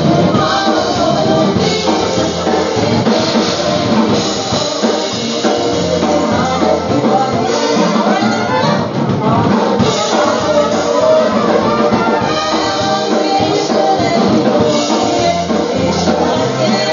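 A live polka band playing a dance tune, trumpets leading over a drum kit's steady beat.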